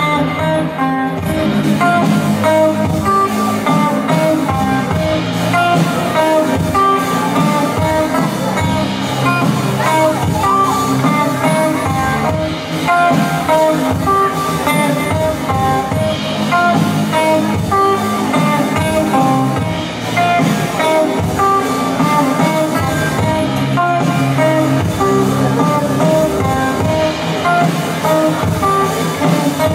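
Instrumental passage of a live blues-rock song: acoustic guitar playing over a plucked upright double bass, with a drum kit behind.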